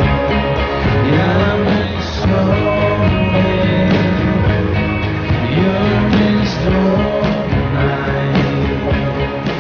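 Music: a song with a singing voice over a full band accompaniment, played at a steady, loud level.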